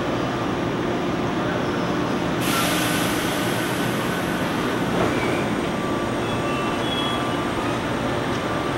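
JNR 583 series electric train at the platform, setting off on a deadhead run: a steady running hum, a hiss that comes in suddenly about two and a half seconds in, then faint whining tones from the traction motors as it begins to accelerate in the second half.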